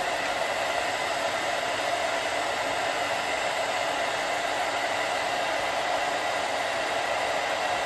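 Handheld hair dryer running steadily on the glued lace hairline: an even, unchanging rush of air with a constant motor hum.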